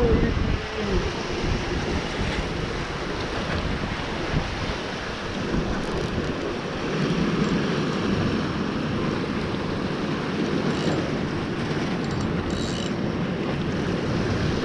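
Steady wind noise on the microphone over the wash of the sea, an even rushing noise with no pitch or rhythm.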